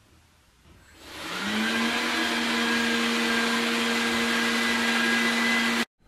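LG Hom-Bot VRD830 robot vacuum starting its cleaning run in turbo mode: about a second in, its suction motor and brushes spin up with a rising hum, then run steadily with a whine. The sound cuts off suddenly near the end.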